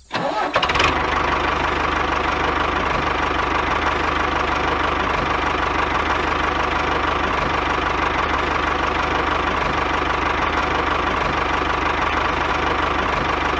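A small engine idling steadily, with a fast, even knocking beat and a steady higher whine over it.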